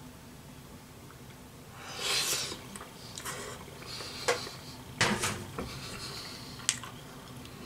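Eating noodles with a metal fork from a bowl: a short burst of eating sound about two seconds in, then several sharp clicks and scrapes of the fork against the bowl.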